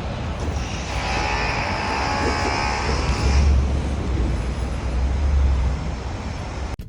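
Vehicle noise: a loud low rumble with a hiss, joined by a buzzing whine from about a second in until about three and a half seconds. It cuts off suddenly near the end.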